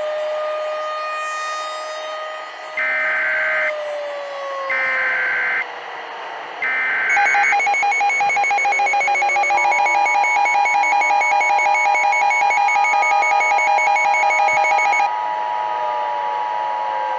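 Emergency Alert System SAME header: three short, harsh, screeching data bursts about a second each, then a loud buzzing alert tone lasting about eight seconds, over a tone that slowly slides down and back up in pitch. It is the coded start of a new alert, a tornado warning.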